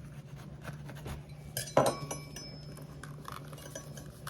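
A sharp clink about two seconds in that rings briefly, a knife or utensil knocking against a dish, among lighter taps and clicks of kitchen prep work. A low steady hum runs underneath.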